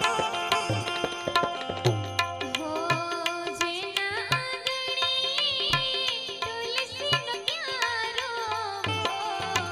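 Devotional aarti music: tabla playing a steady rhythm with deep bass strokes from the bayan, under a melody on the Indian banjo. The melody wavers and grows stronger in the middle of the stretch.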